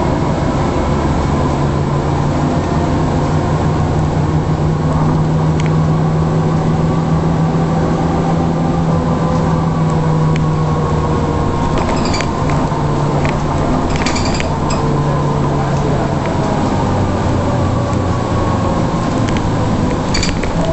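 Mercedes-Benz O405 city bus's straight-six diesel engine running steadily under way, heard from inside the passenger cabin, with a higher whine that slowly falls in pitch in the second half. A few brief rattles of cabin fittings come around the middle and near the end.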